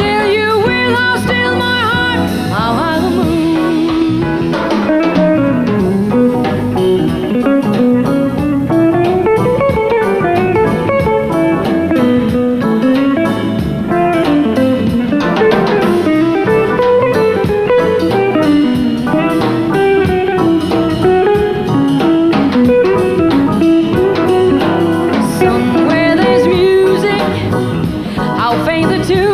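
Jazz band playing live, with an electric guitar prominent in a lead line over piano and drums.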